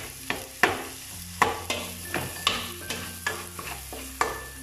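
A spatula knocking and scraping against the bottom and sides of a heavy aluminium pot as onion and garlic are stirred in sizzling butter: sharp, irregular clacks, about two a second, over a steady sizzle.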